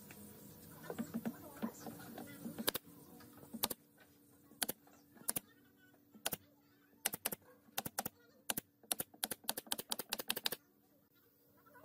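Brad nail gun firing into pine strips: sharp pops, about a second apart at first, then a quick run of shots near the end before stopping. A few light knocks of the wood being set in place come before the first shot.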